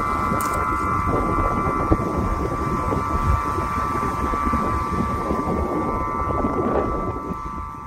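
Aeolian wind harp, its wind-driven strings sounding over a drum resonator: a steady cluster of held high tones, with a fainter higher one. Wind rumbles on the microphone underneath, and the sound begins to fade near the end.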